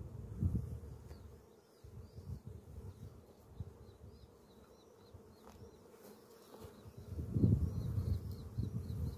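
Honeybees buzzing around an open hive, a fluctuating hum that swells louder about seven seconds in. A faint, repeated high chirp runs through the background, quickening near the end.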